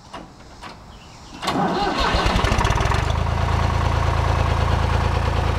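Case 1194 tractor's diesel engine being started: the starter cranks it with a rhythmic chug for about a second and a half, and it catches about three seconds in and settles into steady running.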